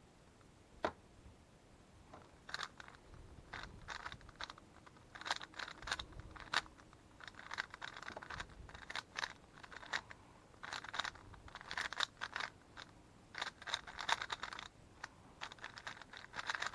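Moyu Weilong GTS3 M magnetic 3x3 speedcube being turned fast in a timed speedsolve: rapid runs of plastic clicking and clacking as the layers snap round, broken by short pauses. A single click sounds about a second in, before the fast turning starts.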